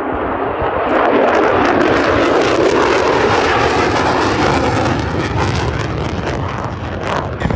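Aircraft flying past with a loud engine roar that jumps up about a second in and eases off over the last few seconds.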